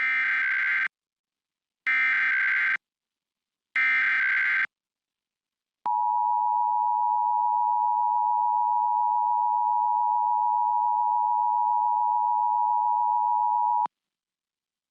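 Emergency Alert System SAME header: three identical bursts of warbling data tones, each just under a second long and about a second apart. They are followed by the two-tone EAS attention signal, held steady for about eight seconds and then cut off abruptly. This is the start of a Required Monthly Test.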